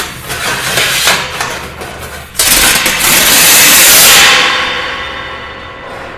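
Metal clattering and crashing, starting suddenly and surging into a louder sustained crash about two and a half seconds in, then slowly dying away with several ringing metallic tones.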